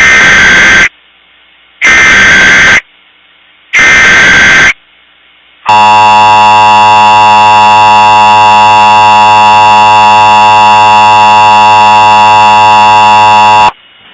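Emergency Alert System broadcast signal: three one-second data bursts of the digital SAME header, each about a second apart. These are followed by the steady EAS attention tone, which holds for about eight seconds and cuts off sharply.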